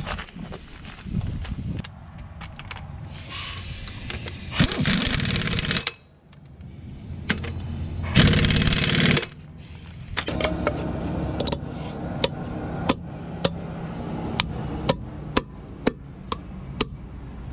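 Air impact wrench hammering on the wheel nuts of a semi-truck dual wheel in bursts: a longer one a few seconds in and a shorter, louder one about eight seconds in. It is followed by a run of sharp clicks.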